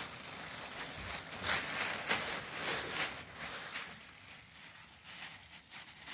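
Crumpled tissue paper crinkling and rustling as kittens scramble and dig through it, with sharp crackles in the first few seconds, then quieter.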